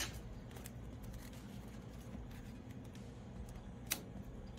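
Faint rustling and rubbing of hands smoothing a small piece of vinyl wrap film onto a car hood, with a few light clicks and one sharp click near the end, over a low steady hum.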